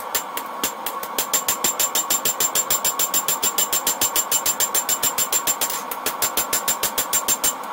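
Hand hammer striking red-hot leaf-spring steel on an anvil, sped up four times. After a few scattered blows, the strikes settle into a fast, even run of ringing blows, about six a second, with a brief pause about six seconds in. A steady hum runs underneath.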